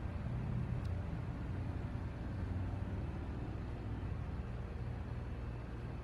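Steady low outdoor rumble with no distinct event, apart from a faint tick just under a second in.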